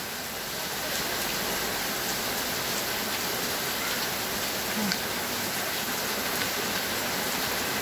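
Steady rain falling and pattering on surfaces after a hailstorm, with the hail over and only rain coming down.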